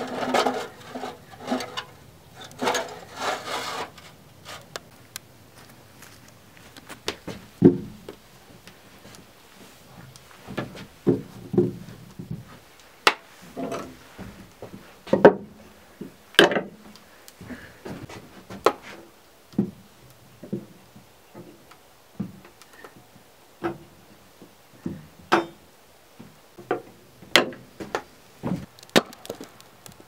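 A large knife cutting potatoes on a wooden board, the blade knocking on the wood in separate irregular strokes about once a second. At the start there are a few seconds of rustling and crackling.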